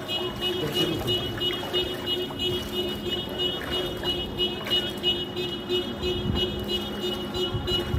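Music with a quick, steady pulse of about three beats a second over sustained tones.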